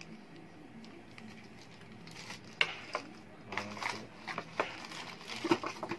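Handling of a boxed motorcycle mobile-phone holder kit: plastic packaging crinkling and small parts clicking and knocking in a cardboard box, a string of short clicks and rustles starting about two seconds in.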